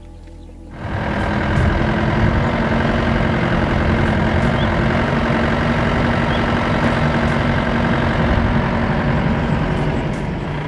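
Safari jeep's engine running and road noise as it drives along a dirt track, heard from on board; it comes in suddenly about a second in and holds steady with a low hum.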